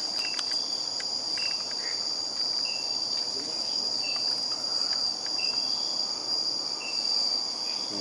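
Night insect chorus in tropical forest: a steady high-pitched trill throughout, with a separate short chirp repeating about every second and a quarter.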